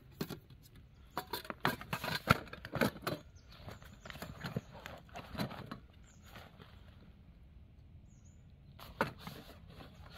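Rustling fabric and light knocks of a backpack being packed: the top flap and cloth are handled and gear is pushed inside, in irregular bursts over the first half and again briefly near the end.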